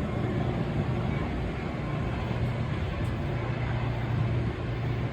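Steady low vehicle rumble with a hum, against outdoor background noise.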